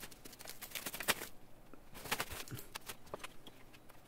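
Thin foam packaging sheet rustling and crackling as it is pulled off a plastic TV stand leg, in soft irregular crinkles.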